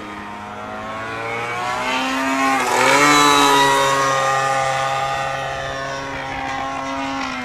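Radio-controlled Diabolo model airplane's engine running in flight, a steady pitched drone that grows louder to a peak about three seconds in and then fades. Its pitch dips and shifts with throttle and the plane's passes.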